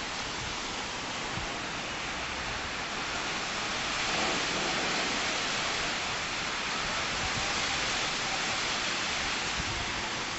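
Steady, even background hiss, swelling slightly about four seconds in.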